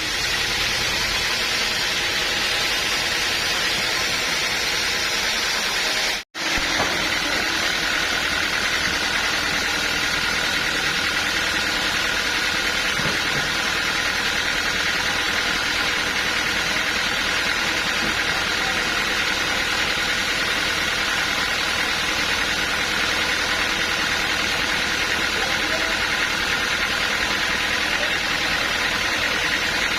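Sawmill machinery running steadily: a continuous engine-like drone with a steady whine, broken by a momentary dropout about six seconds in.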